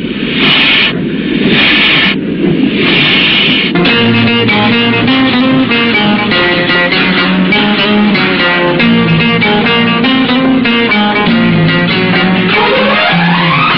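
Instrumental Hindi film music with a steady beat and a moving bass line, opening with a few bursts of hiss and ending on a rising slide.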